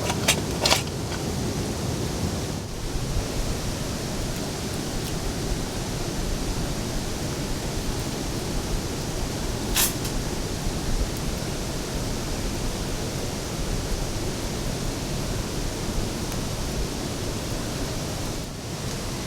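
Steady rushing of a rain-swollen river, one even roar of water. A few sharp clicks stand out, two right at the start and one about halfway.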